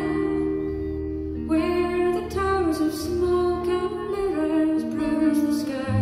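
A woman singing a slow folk song live, over long sustained chords from an accordion and drone instrument.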